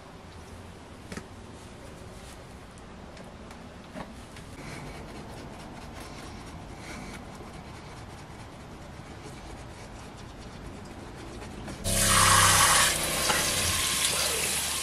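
Pull-down kitchen faucet running into a sink for about three seconds near the end, starting suddenly, as water is run for rinsing after brushing teeth. Before it there are only faint, low sounds.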